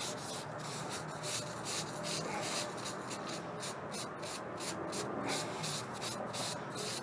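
A paper lens wipe rubbed back and forth over a bead-blasted steel test blank, spreading a coat of Eezox gun lubricant: a dry scrubbing in quick, repeated strokes.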